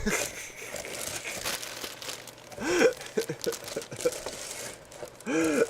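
Packaging crinkling and rustling as it is handled, with two short vocal sounds from a man, about three seconds in and near the end.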